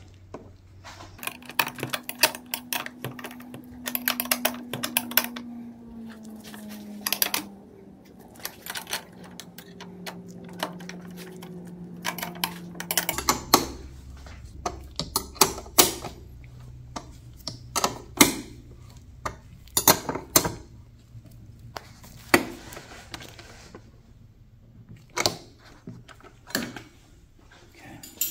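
Bursts of rapid clicking and metallic clatter from hand tools and metal parts being worked while fasteners are fitted, over a faint low hum.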